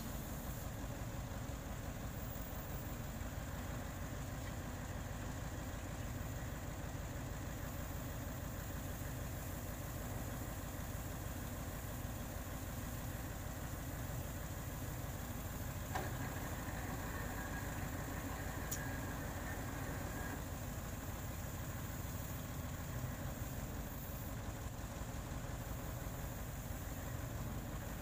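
A boom truck's diesel engine runs steadily, powering the truck-mounted crane as its hydraulic boom is worked. About halfway through there is a sharp click, then a faint higher whine for a few seconds.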